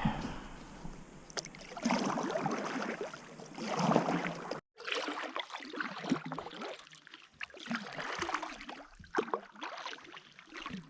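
Kayak paddling on calm lake water: two paddle strokes swishing through the water in the first half, then small irregular splashes and drips around the kayak after a brief dropout about halfway through.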